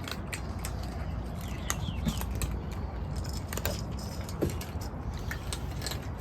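A steady low rumble with scattered light clicks and a few faint, short bird chirps.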